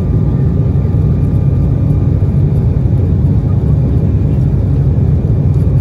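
Cabin noise of an Embraer ERJ-195 airliner climbing after takeoff, heard from a window seat: a loud, steady low rumble from its GE CF34-10E turbofan engines and the airflow, with a faint steady high tone above it.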